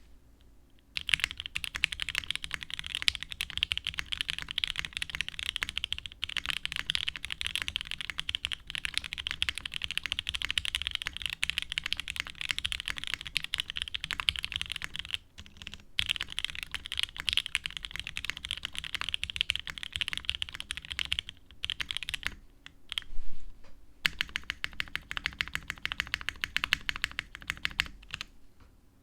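Computer keyboard typed on fast and steadily, a rapid run of key clicks with brief pauses. A few louder thumps about 23 seconds in.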